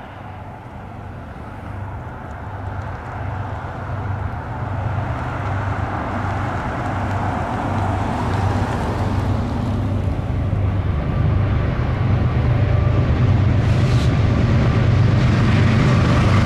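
Canadian National GE C40-8 diesel locomotive approaching, its engine running with a low steady drone that grows steadily louder as it draws near, mixed with the rumble of the train rolling past. One brief sharp click sounds near the end.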